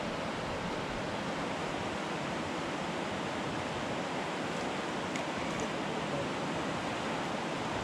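Steady rushing of a swollen, flood-muddied river, an even, unbroken hiss of water.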